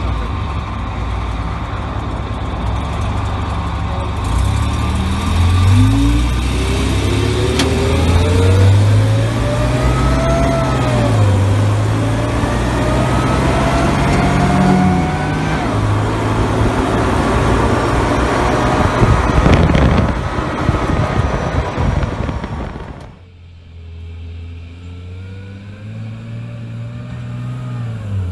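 The Rolls-Royce B6 4.2-litre straight-six engine of a 1953 Daimler Ferret armoured car driving on the road, its pitch climbing several times as it accelerates. About 23 seconds in, the sound cuts to the same engine heard quieter from outside, getting louder as the car comes closer.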